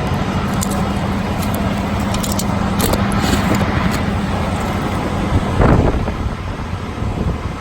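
Steady loud background drone with a faint low hum, like a running vehicle or shop noise. Light metallic clicks and rattles come a second or so in, and a louder rustling knock comes about three quarters of the way through.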